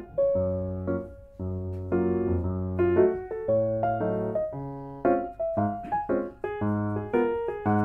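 Background music: a piano playing a run of chords.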